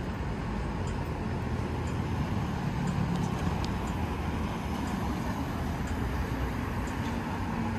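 Steady city street traffic noise, with motor vehicles running close by and a low rumble.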